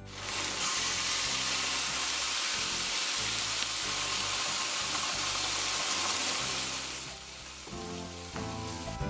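Liquid seasoning hitting a hot steel wok and sizzling hard around fried fish as the braise begins; the hiss starts suddenly and dies down after about seven seconds. Background music plays underneath.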